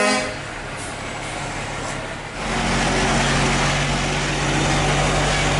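Heavy diesel truck's engine heard from inside the cab. It is quieter for the first two seconds, then louder with a steady drone from about two and a half seconds in.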